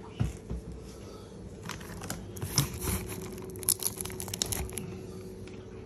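Packaging of a fish shipping box being handled and opened: rustling and crinkling, with a quick run of crackles from a few seconds in, over a faint steady hum.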